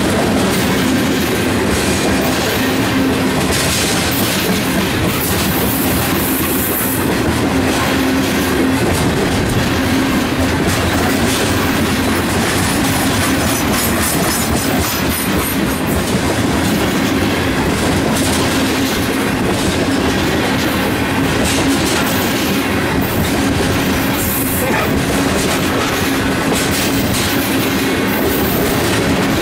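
Freight train of ethanol tank cars rolling past at close range: steel wheels clicking over the rail joints in a continuous, steady rolling noise with a steady low hum underneath.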